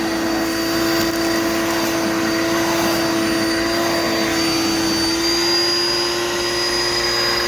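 Dirt Devil Multi Surface vacuum cleaner running steadily, a constant motor whine over rushing airflow; the whine rises slightly about five seconds in.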